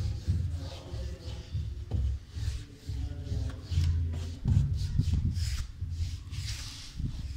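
Paintbrush strokes rubbing on a painted wooden door, a short swish with each stroke, several a second. Uneven low bumps and knocks from the door and the handling run under the strokes and are louder than them.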